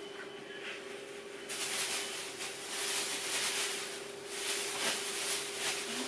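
Rustling and handling noise starts about one and a half seconds in, over a faint steady hum.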